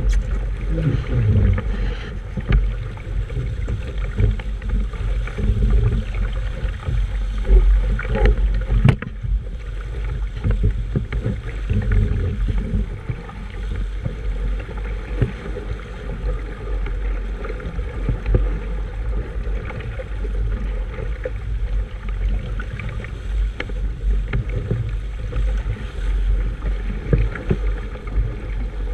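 Wind buffeting the microphone aboard a sailboat under way: a steady, gusting low rumble with a few scattered knocks.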